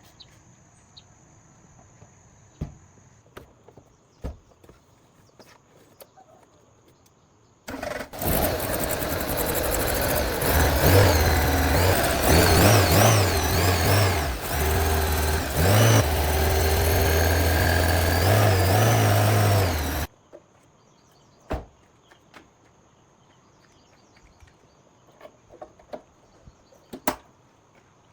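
Jeep engine, revived after sitting abandoned, starting about eight seconds in and running with its revs rising and falling for about twelve seconds, then cutting off suddenly. Faint clicks and taps before and after.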